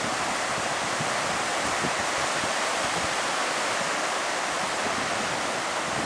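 River rapids rushing steadily, a constant even roar of white water.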